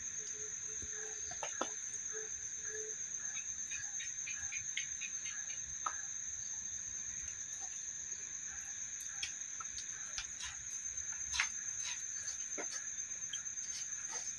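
Crickets trilling in one steady high-pitched tone, with scattered faint clicks and a sharper click about eleven seconds in.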